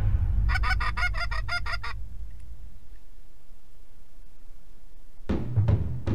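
A quick, evenly spaced run of about ten goose honks, lasting under two seconds. Near the end, music with drum hits comes in.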